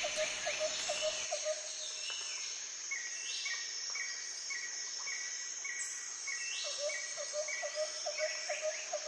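Forest ambience: a steady high insect buzz with birds calling over it, short low chirps repeated several times a second at the start and again near the end, and a series of brief higher notes about twice a second through the middle.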